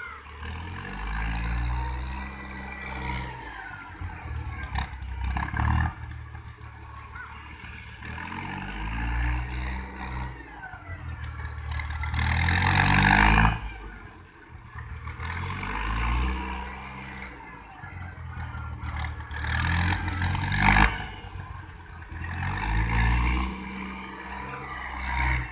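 Farm tractor's diesel engine running as it drives in circles over spread rice straw, threshing it. The engine note rises and falls and swells louder about every four seconds, with louder peaks of noise twice.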